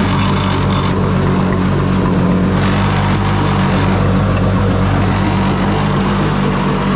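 Home-built jet boat's engine running steadily at an even speed on its first run.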